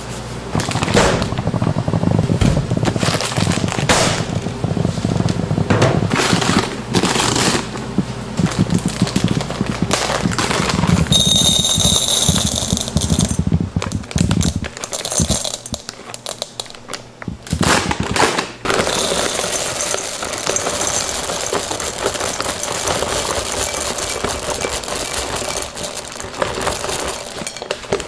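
Food-preparation work sounds: a string of sharp knocks and clatter on a hard surface, a brief high-pitched squeal about halfway through, then a steadier, denser crackle.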